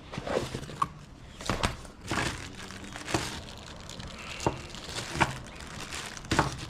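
Crinkling of plastic packaging with scattered sharp clicks as small tool pieces are handled.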